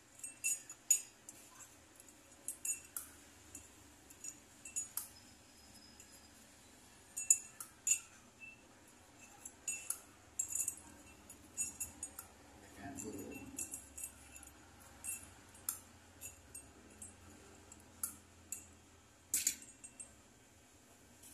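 A thin metal bangle and a steel tool clinking and tapping against the rim of a drinking glass as the bangle is dipped into and lifted out of the liquid inside. The clinks are short, sharp and irregular, and come in small clusters throughout.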